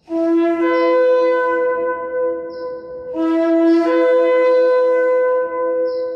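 Ram's-horn shofar blown in two long blasts, each starting on a lower note and breaking up to a higher note that is held for a couple of seconds.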